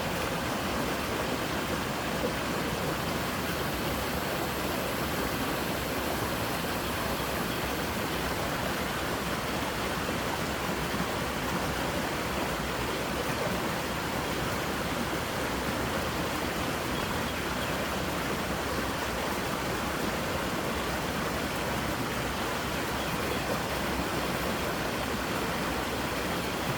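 Creek water rushing over its bed: a steady, even rushing without a break.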